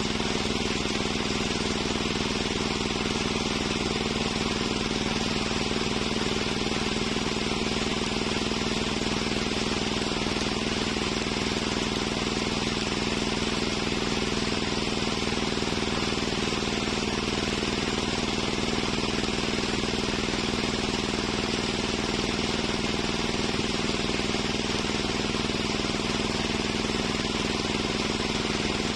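Large homemade table circular saw (serkel) running steadily with no wood in the cut: an even, unchanging hum.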